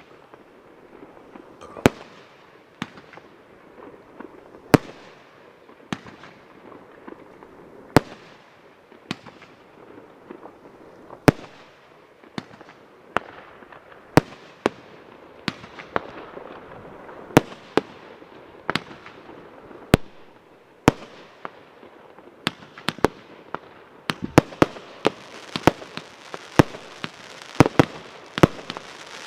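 Fireworks shot from tubes: sharp bangs about once a second, each trailing off in a fading crackle. The bangs come faster and close together in the last few seconds.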